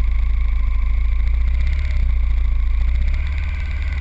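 Motorcycle engine running steadily as the bike rides along, under a heavy low rumble. The level dips briefly in the second half.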